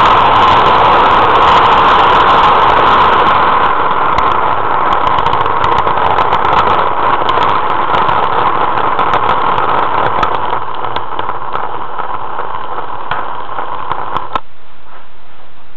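Model train running on its track, heard from a camera riding on it: a steady whirring hum with scattered clicks from the wheels and track. It slowly gets quieter and cuts off about fourteen seconds in as the train stops.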